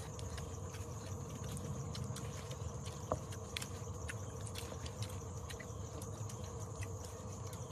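Steady insect drone over a low outdoor rumble, with scattered sharp clicks and crunches from chewing and handling food and a cleaver on the leaf spread; one sharper click about three seconds in.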